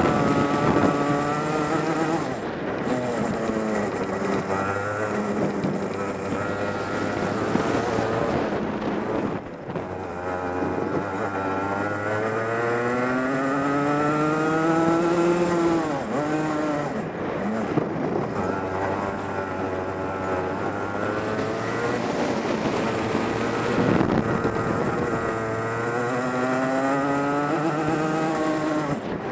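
DMAX racing kart's engine heard on board while lapping: its pitch climbs for several seconds along each straight and drops sharply as it slows for the corners, four or five times over.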